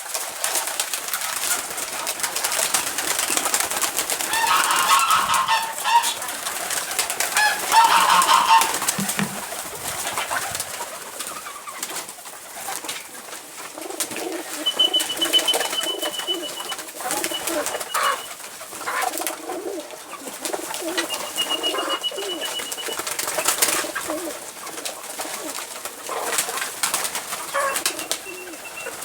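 Domestic pigeons cooing in a coop, a steady low rolling coo from about halfway through. Louder calls from other birds come twice early on, with a thin high trill twice later, over scattered short clicks and flutters.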